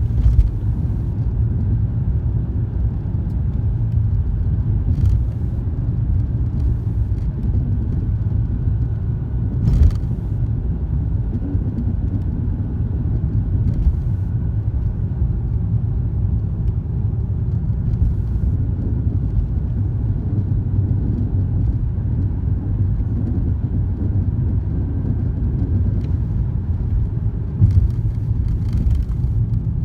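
Steady low road rumble of a 2003 BMW E46 325xi on the move, broken by a handful of short knocks, several seconds apart with a cluster near the end: the driver-side clunk whose cause is unknown.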